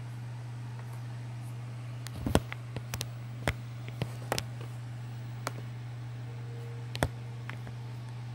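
Scattered sharp taps and clicks, the loudest about two seconds in and again near seven seconds, over a steady low hum. A phone is being handled and tapped to search for something.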